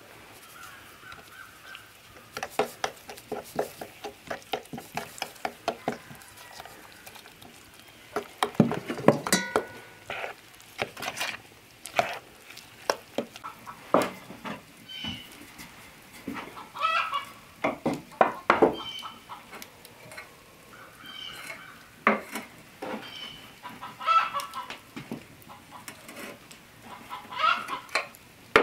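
Chickens clucking in short calls on and off, mixed with knocks and taps of a wooden rolling pin as pie pastry is rolled out on a floured table.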